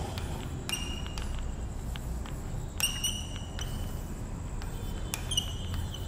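Chalk writing on a blackboard: taps and short high squeaks as symbols are chalked. They come in clusters, about a second in, around three seconds in, and near the end.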